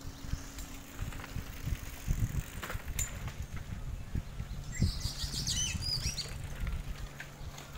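Wind buffeting the microphone and the rumble and rattle of mountain bikes riding over a rough dirt road. A few short bird chirps about five seconds in.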